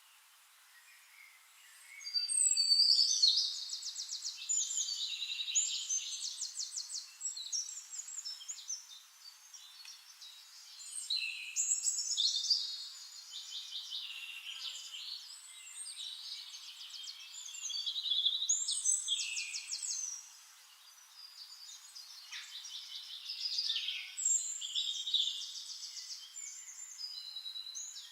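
Songbird singing in repeated phrases of fast, high trills and chirps, a new phrase about every five to seven seconds, with quiet gaps between.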